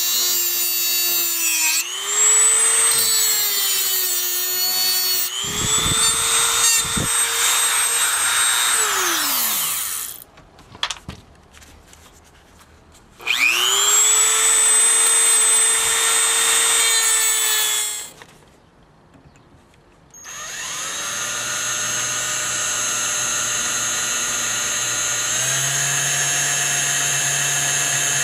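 A Dremel-type rotary tool spins up to a high-pitched whine, runs and winds down twice. It then runs steadily again, stepping up in pitch near the end.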